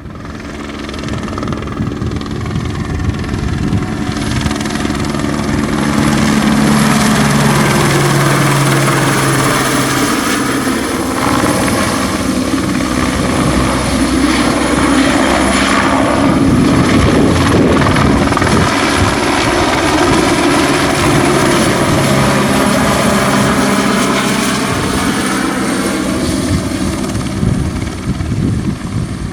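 Eurocopter AS350B helicopter with a single turboshaft engine flying past low, its main rotor beating and turbine running. It grows louder over the first few seconds, and the tone shifts as it comes closest around the middle.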